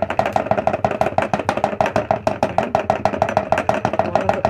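Electric grain mill grinding egg shells into powder, running with a loud, fast, even rattling clatter of about ten strokes a second.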